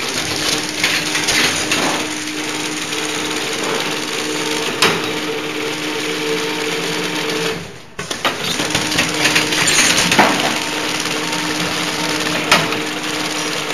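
Automatic packing machine for plastic coffee stirrer sticks running: a steady mechanical clatter over a steady hum, with a few sharp clicks.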